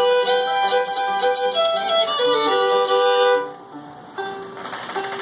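Fiddle being tuned: bowed strings held as long double stops, with the pitch shifting as it is brought into tune. The bowing breaks off about three and a half seconds in, and quieter tones follow.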